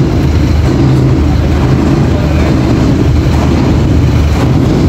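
Scania P310 tow truck's five-cylinder diesel engine running steadily at a constant speed, powering the winch as its cable pulls a heavy machine onto the flatbed.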